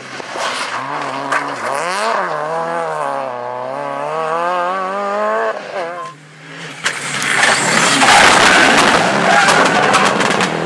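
Rally car engine at high revs, its note rising and falling with throttle and gear changes. About seven seconds in, a loud rushing noise with crackles takes over as the car slides, tyres skidding.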